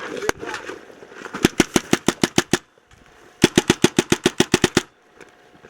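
Paintball marker firing rapidly in two strings of shots, about ten a second, each lasting over a second, after a single shot near the start.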